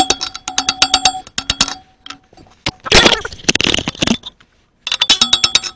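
A 4-pound hammer striking a square steel drift against the fan pulley half of an International 400 tractor: rapid ringing metal blows, about four a second, to drive the pulley half loose. The blows stop for a few seconds, with a burst of rustling noise, and resume near the end.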